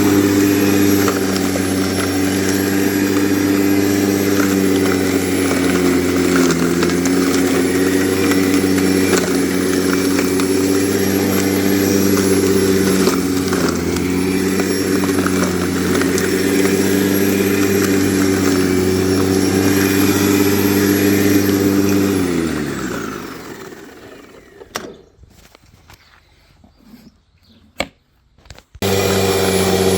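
Grunman corded electric lawn mower running with a steady motor hum, then switched off about three-quarters through and spinning down, falling in pitch over a couple of seconds. A few clicks and knocks follow, then the mower starts again abruptly near the end.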